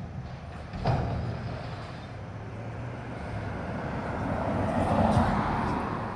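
Autocar ACX front-load garbage truck with a Heil body, its engine running and revving up while the hydraulic arms bring an emptied 8-yard dumpster down from over the cab. A single knock about a second in, and the engine and hydraulic noise swells to its loudest about five seconds in before easing off.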